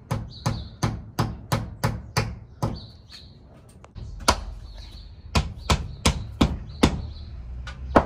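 Claw hammer knocking a wall plug into a drilled hole in a brick wall: a quick run of light blows, about three a second. After a short break a second run of louder, more spaced blows follows.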